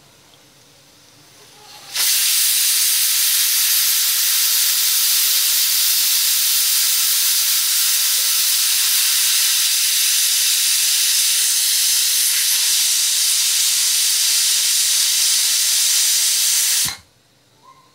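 Pigeon Deluxe aluminium pressure cooker letting off steam through its whistle weight in one long, loud, steady hiss, starting about two seconds in and cutting off suddenly near the end. This is one of the whistles counted to time the dal and vegetables cooking under pressure.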